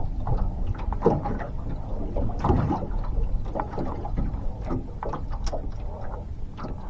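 Water lapping against a boat hull: many small, irregular knocks and splashes over a steady low rumble.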